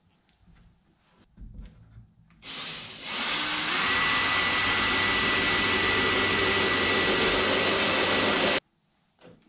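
Cordless drill boring a hole through a wooden spacer block into a dinghy's outer rail. It spins up about two and a half seconds in, runs steadily at high speed with a thin whine for about five seconds, and stops abruptly. A few light knocks come before it.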